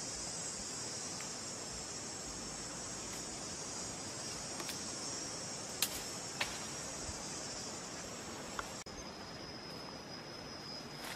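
Insects chirring steadily in a high, even band, with two sharp clicks about six seconds in. Near the end the chorus abruptly thins to a single steadier pitch.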